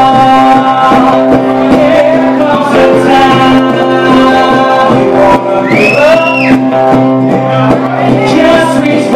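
Live acoustic duo performing: an acoustic guitar strummed in a steady rhythm under sustained sung vocals, with the woman singing lead.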